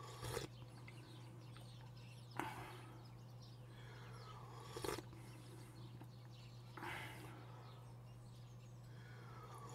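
Quiet eating sounds: four short, sharp bite or mouth clicks about two seconds apart, each trailing off briefly, over a steady low hum.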